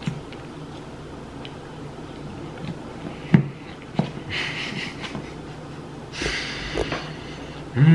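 Close-miked eating: chewing a mouthful of fries and breathing hard through the nose twice, with two sharp clicks of a metal fork against the plastic tray of fries a little past the middle.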